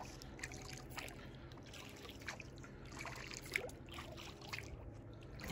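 Water trickling and dripping around a small boat moving slowly through flooded brush, with scattered light knocks and clicks. Under it runs the faint steady drone of a motorboat somewhere up the channel.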